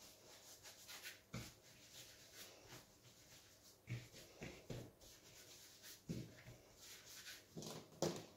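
Hands rolling and shaping bread dough on a pastry mat: faint rubbing with a few soft bumps.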